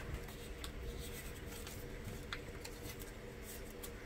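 Hands pressing and rubbing newly glued flooring down along a wall edge: light scratching and rubbing with scattered small clicks and ticks, over a faint steady low hum.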